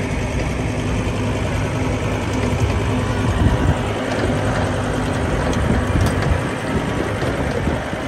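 John Deere farm tractor's engine running steadily as it pulls along a dirt track, a continuous low rumble with a steady hum.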